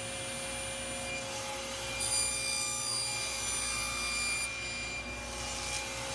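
Table saw running with a steady whine while a crosscut sled carries a plywood panel through the blade for a five-cut squaring test cut. The cutting is loudest from about two seconds in until about four and a half seconds in.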